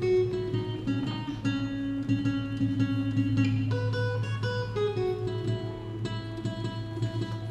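Acoustic guitar played solo: single notes picked and left to ring, the melody moving to a new note every second or so.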